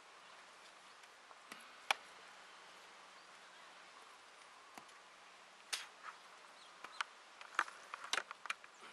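Footsteps and walking sticks on the ground: scattered sharp taps and knocks, a couple early and a quick cluster in the last few seconds, over a faint steady hiss.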